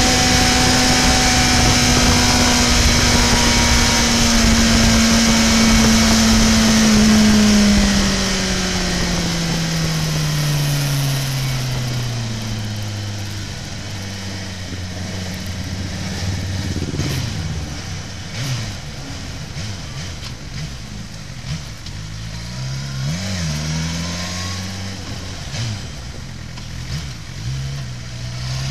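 Suzuki GSX-R750's inline-four engine heard from on board, running steadily at high speed under heavy wind rush, then dropping in pitch as the bike slows. It then runs at low revs with a few short throttle blips.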